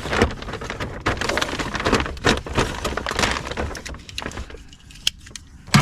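Plastic parts and packaging being handled: a rapid run of clicks, knocks and rustling that thins out after about four seconds, ending on one sharp knock.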